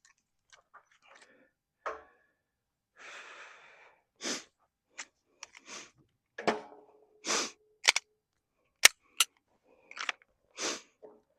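Handling noises of shooting gear being switched from rifle to handgun: an irregular string of clicks, clacks and rustles, with one sharp click about nine seconds in the loudest.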